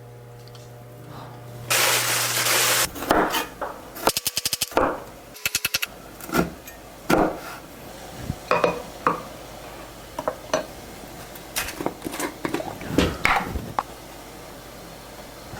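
Tableware and shells clinking and knocking during a meal of oysters and clams: many separate sharp clicks and taps. Near the start there is a loud hiss lasting about a second, and a little later two short, fast rattles.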